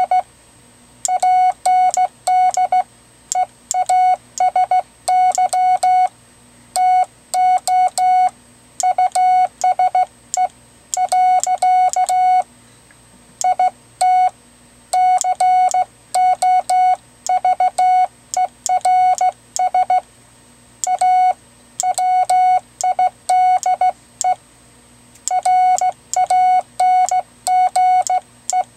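Morse code sidetone keyed by a semiautomatic bug key (the WB9LPU GoBug): a single steady beep tone switched on and off in rapid dits and dahs, sent in runs with short pauses between words. Sharp clicks mark each on and off edge.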